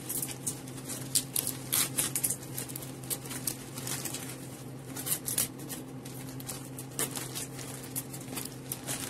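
Bouquet wrapping paper rustling and crinkling as it is gathered and adjusted by hand, in irregular crackles, over a steady low hum.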